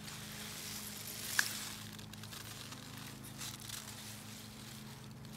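Snow pea vines and leaves rustling faintly as pods are picked by hand, with one short sharp click about a second and a half in, over a faint steady low hum.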